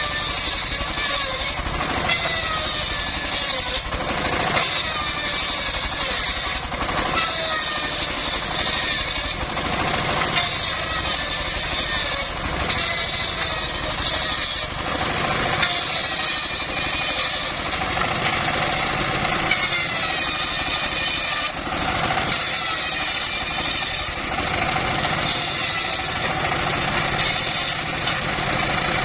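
Homemade circular saw rig (gergaji serkel) cutting timber into planks. The blade whine slides down in pitch as it bites into the wood, and the hiss of the cut breaks off briefly every few seconds between passes.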